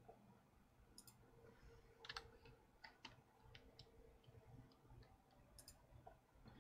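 Near silence with faint, irregular clicks and taps of a computer mouse and keyboard, a dozen or so, the loudest cluster about two seconds in.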